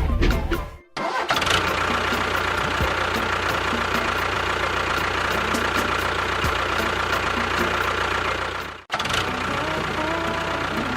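A small engine running steadily. The sound starts abruptly about a second in, cuts off sharply near nine seconds, and a similar engine sound follows.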